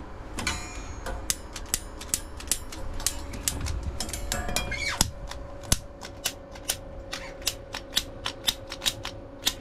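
Gas igniter clicking over and over, about two or three ticks a second, with the gas not yet lighting. A steady hum joins about halfway through.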